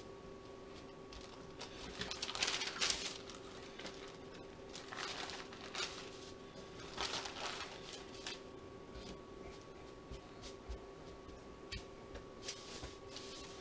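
Parchment paper crinkling and rustling under hands pressing and folding soft biscuit dough, in several short bursts, over a faint steady hum.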